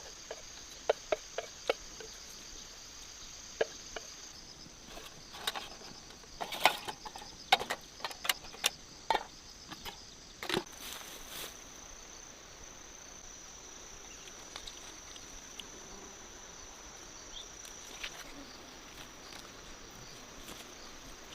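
Insects chirring steadily in a high, even tone, with a run of sharp clicks and knocks through the first half.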